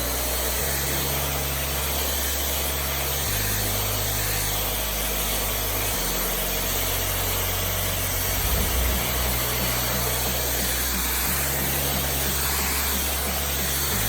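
WAP Silent Speed 1000W stick vacuum cleaner running steadily at full suction with its upholstery nozzle on a sofa: a steady, even rushing hiss, with a brief swell about eight seconds in.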